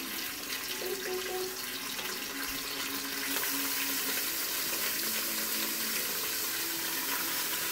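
Pieces of beef sizzling in hot oil in an Instant Pot as they brown. The sizzle gets louder a little over three seconds in, as another piece goes into the pot.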